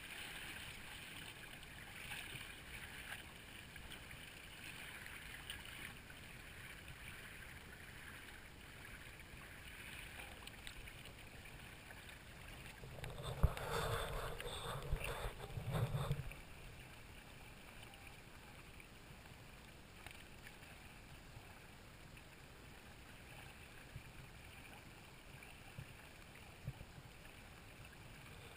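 Water washing past the hull of a Hobie Tandem Island sailing kayak under way, a steady faint hiss of water and wind. About halfway through there are a couple of seconds of knocking and rubbing, with one sharp knock, as the camera mount is turned.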